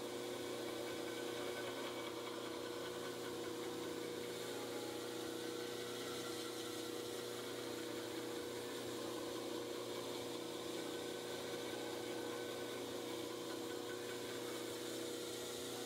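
KMG belt grinder running with its electric motor giving a steady hum, while a CPM 3V steel cleaver blade is held against the moving belt and ground.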